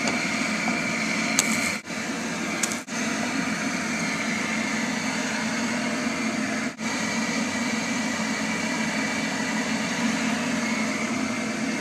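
Kitchen range hood fan running steadily with a faint whine, briefly cutting out three times.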